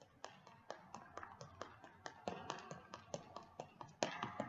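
Quick, even footfalls of sneakers on a hard floor from a person running in place, about four to five steps a second.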